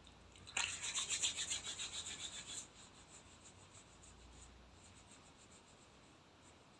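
Hands being rubbed together briskly during hand washing: a quick, rhythmic rubbing that starts about half a second in, stops sharply after about two seconds, then goes on much more faintly for a few seconds more.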